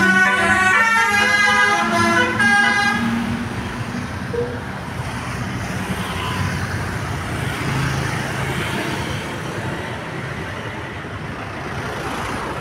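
Bus telolet horn (a Basuri-type multi-tone musical air horn) playing a short stepping tune for about the first three seconds. It is followed by steady engine and road noise from the bus and traffic.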